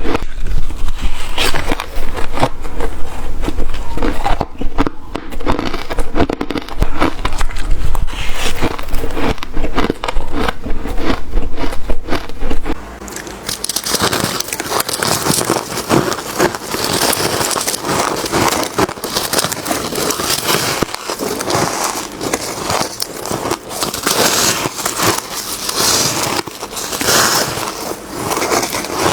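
Close-up biting and chewing of frosty white freezer ice: dense crunching and crackling. About halfway through it changes to a brighter, hissier crunch, and a low hum under the first half stops there.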